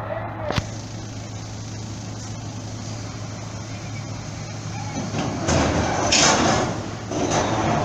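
Heavy truck's diesel engine running with a steady low drone as it moves onto a ferry's loading ramp, with a sharp click about half a second in and louder noisy surges about five and seven seconds in.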